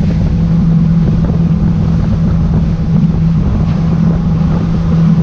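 Outboard motor of a Bar Crusher 490C plate-aluminium boat running at steady cruising speed, a constant hum over the rush of the hull through the water, with wind buffeting the microphone.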